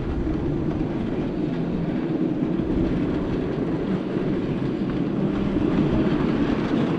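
Miniature railway train running, a steady even noise with no break.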